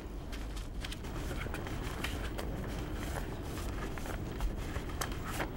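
Paper letters and envelopes rustling and flicking as a bundle of mail is leafed through by hand, with irregular small crackles throughout.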